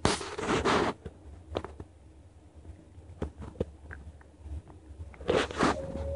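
A cat gnawing and biting at a hard Greenies dental chew on a rug: rasping scrapes and small sharp clicks, with a louder scraping spell about a second long at the start and another about five seconds in.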